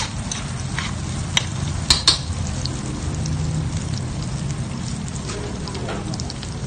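Sliced onions, garlic and green chilies sizzling in hot oil in a metal wok while being stirred, with a few sharp clinks of the spatula against the pan in the first two seconds.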